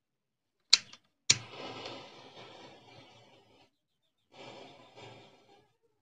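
A butane torch lighter clicks twice, about a second apart; the second click lights it and a faint hissing flame follows for about two seconds. Faint crackling comes later as the matchstick heads catch fire.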